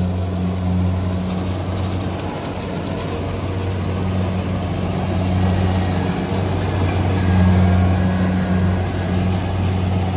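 Combine harvester's diesel engine running steadily with a deep hum, growing a little louder about seven seconds in.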